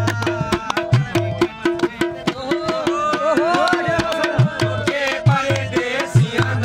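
Live Hindko folk music: dholak and tabla drumming in a steady, quick rhythm with deep bass strokes, under a harmonium. A wavering sung melody comes in about three seconds in and fades out shortly before the end.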